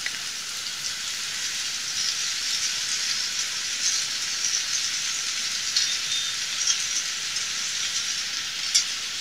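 Sliced cabbage, carrot, capsicum and onion frying in oil in a non-stick pan while boiled noodles are tipped in on top: a steady sizzling hiss with scattered light crackles.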